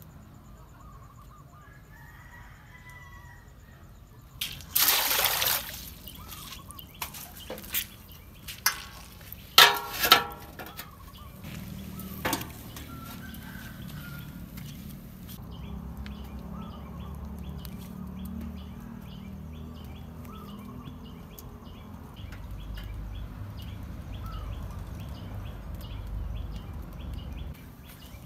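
Handling noises, with a rustle and several sharp clinks and knocks of metal. Then a steady low sound of water boiling in an aluminium steamer pot over the fire, with birds chirping faintly.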